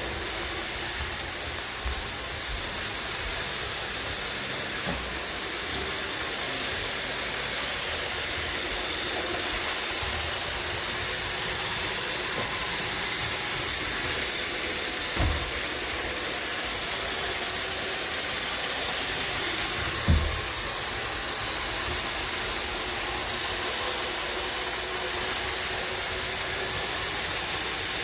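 iRobot Roomba 694 robot vacuum running with a steady whirring hiss, broken by a few short low thumps about 2, 15 and 20 seconds in.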